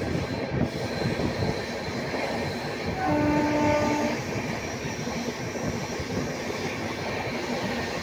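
Passenger train running on the line, a steady rumble and rattle heard from aboard. A train horn sounds once, a single held note lasting about a second, about three seconds in.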